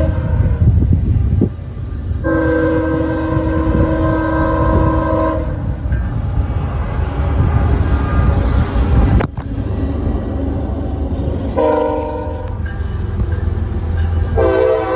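Freight diesel locomotives sounding their multi-tone air horns at a grade crossing over the deep rumble of their engines. A CSX locomotive blows a short blast, then a long one of about three seconds as it passes close. About nine seconds in, the sound switches to an approaching Norfolk Southern ES40DC, which sounds a short blast and begins another near the end.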